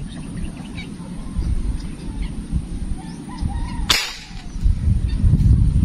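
A single airgun shot about four seconds in: one sharp crack, fired at a fish among water hyacinth, under a steady low rumble.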